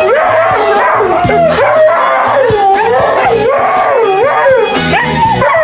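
A dog howling, its pitch rising and falling over and over in a wavering, sing-song way.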